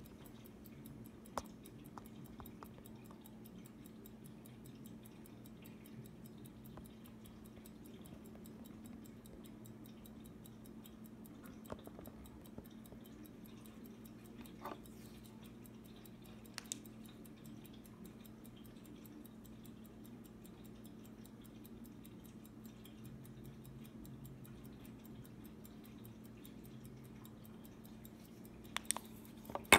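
Hamilton 902 pocket watch ticking, faint, fast and even. A few sharp clicks stand out, with a louder cluster of clicks near the end.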